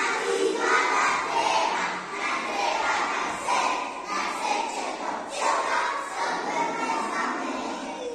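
Many children's voices shouting and chattering at once, a loud overlapping jumble that starts suddenly and breaks off suddenly.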